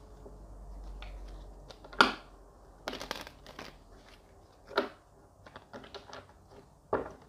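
Tarot deck being shuffled and handled by hand on a wooden tabletop: a run of irregular sharp card snaps and taps, the loudest about two seconds in.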